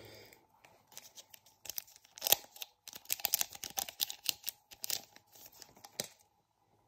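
Pokémon card booster pack wrapper being torn open by hand: a run of sharp, crinkly rips and crackles lasting about four seconds, loudest about two seconds in, stopping about six seconds in.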